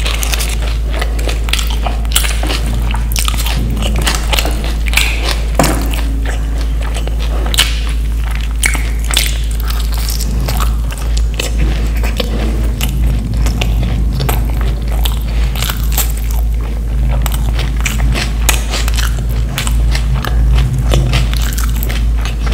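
Close-miked eating: a run of short, crisp crunching bites and chewing. A steady low hum runs underneath.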